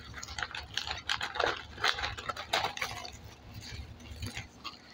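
Crackling and crunching of puffed pork rinds, many short sharp crackles in quick succession. Under them runs a low steady rumble that cuts off suddenly about four seconds in.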